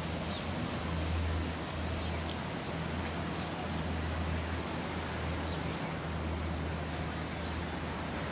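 Steady outdoor noise: an even hiss over a low rumble, with a few faint high chirps.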